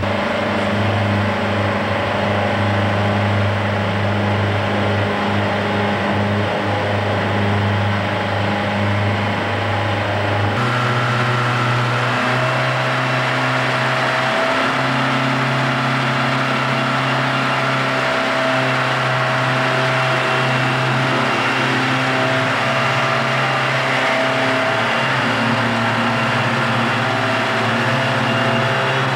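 Boat engine running steadily under way, a low hum over a steady rushing noise. About ten seconds in the sound cuts abruptly to a different, slightly higher engine note, which then holds steady.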